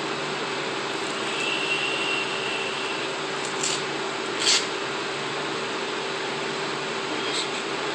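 Small electric power tool running steadily with a constant hum, with a few short sharp scraping noises in the middle and near the end.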